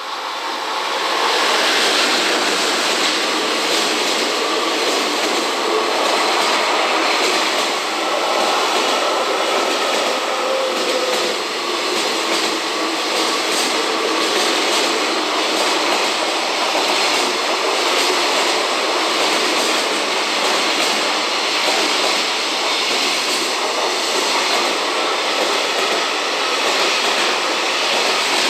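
A JR Freight EF210 electric locomotive and its long train of container flat wagons rolling past at close range. There is a loud, steady rumble of steel wheels on rail with a regular clacking. It swells about a second in as the locomotive goes by, then holds steady as the wagons pass.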